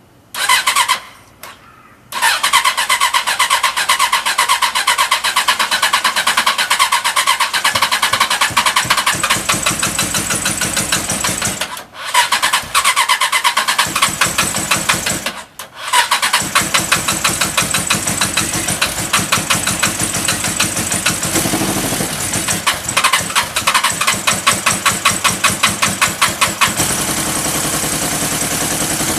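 Suzuki GSX-R750 inline-four engine being turned over on its electric starter in several long, pulsing bursts with short pauses between them. Near the end it settles into a steadier running sound.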